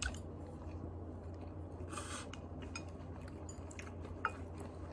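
Faint chewing of food with the mouth closed, with a short rustle about two seconds in and a couple of light clicks, over a low steady hum.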